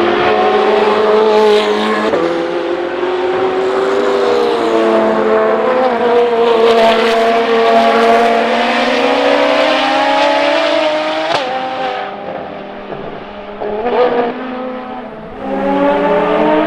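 Ferrari FXX K's V12 engine at speed, its note rising slowly for about eleven seconds, then a sharp crack. The sound drops back for a few seconds, with a short rev blip, and a loud engine note returns near the end.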